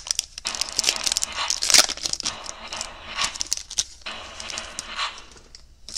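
Foil wrapper of a Topps Opening Day baseball card pack crinkling and tearing as it is ripped open, with a sharp crackle a little under two seconds in, then rustling as the cards are slid out of the wrapper.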